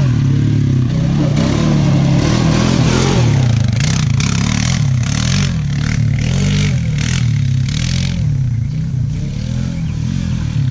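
2008 Honda Rancher ATV's single-cylinder engine revving up and falling back again and again as it is ridden hard on a test ride, with clattering over the engine.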